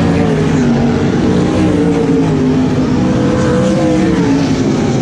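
Several LS1 V8 sprint car engines running on a dirt oval, their pitch rising and falling as the cars lap.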